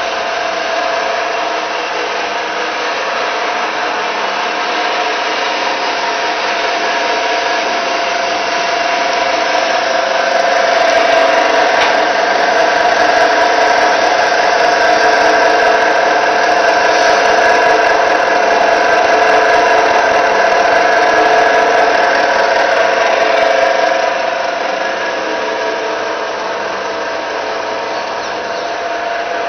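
Horizontal rib plough mixer running: its electric motor and gearbox give a steady mechanical hum with a held whine, louder for about a dozen seconds in the middle.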